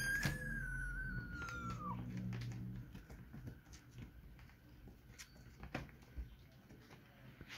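A kitten gives one long meow of about two seconds that sags in pitch toward its end, followed by light scattered taps and scrapes of kittens' paws on a wooden floor.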